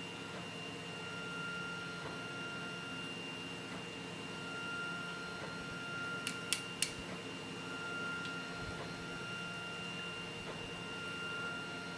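Steady low hum with a thin high whine, and three light clicks about halfway through: small lock pins and springs being handled with pinning tweezers while a lock is gutted.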